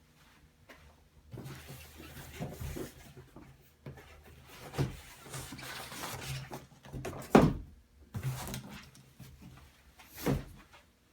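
Cardboard keyboard boxes being handled: sliding and rustling, broken by several knocks as they are set down or bumped, the loudest about seven seconds in.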